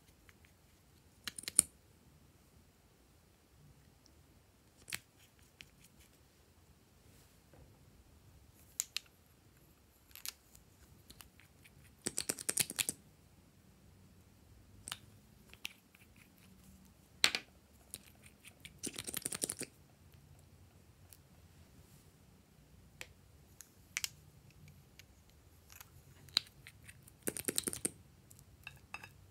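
Scattered sharp plastic clicks from small lip gloss tubes and caps being handled and opened. Three rasping bursts of about a second each come as applicator wands are drawn out and worked.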